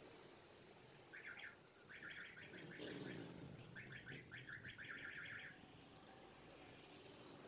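A bird chirping faintly in a few quick runs of rapid, evenly repeated high notes over a low background hiss.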